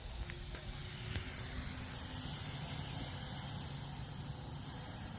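Air hissing steadily out of a bicycle inner tube's valve as its pin is held pressed down, deflating the tube. The hiss swells a little and then slowly tapers off.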